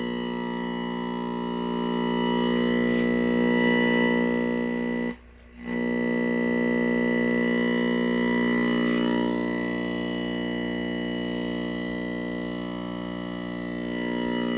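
Music with guitar playing through the speaker of a 1969 Zenith 13A16-chassis tube television, over a steady buzz of stacked tones; the sound cuts out for about half a second around five seconds in.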